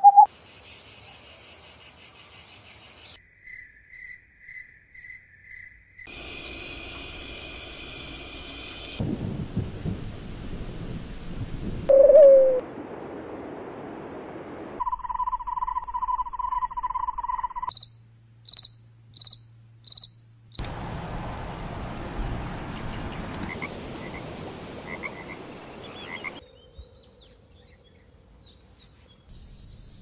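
A string of short insect and frog recordings spliced one after another, changing every few seconds. There are high steady cricket-like trills, runs of evenly spaced chirps and a lower steady trill, with a quiet gap near the end.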